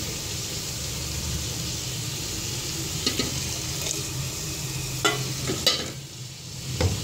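Hot cooking oil sizzling in a pot as ground onion-tomato masala paste is poured in, with a few light knocks of the container and utensils against the pot.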